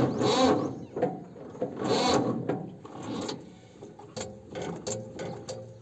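Electric starter of a Mahindra 275 DI tractor cranking in two short bursts, with a weaker third, without the diesel engine catching, followed by scattered mechanical clicks and clunks.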